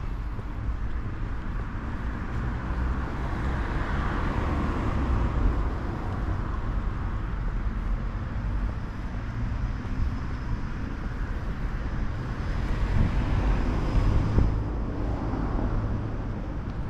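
Street traffic noise: a steady low rumble, with the rising and fading hiss of passing cars about four seconds in and again about fourteen seconds in.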